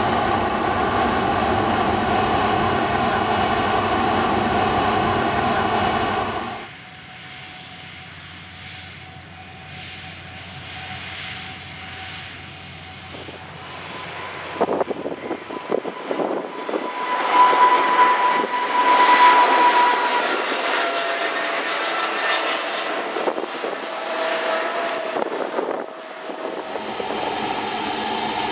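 Jet airliner engines across several edited shots. First a loud, steady jet roar that cuts off suddenly about six seconds in, then a quieter stretch. From about halfway, a Boeing 777-300ER's GE90 engines climb out after takeoff, getting louder with a strong whine. Near the end there is the steady running and high whine of a Boeing 747-400F's four engines on the runway.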